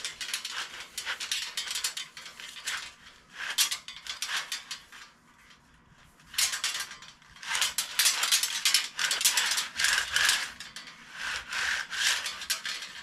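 Coiled 3/8-inch aluminium tubing being drawn through a 3D-printed roller tube straightener: the tube rolling over and rubbing against its ball bearings makes rapid clicking in several bursts, with short pauses as it is re-gripped.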